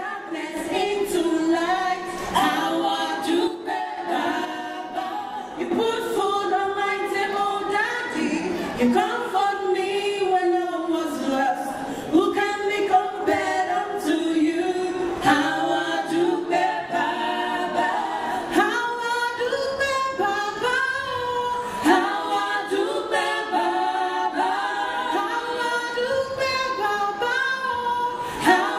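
Four women singing together a cappella into microphones, in long held and gliding sung lines.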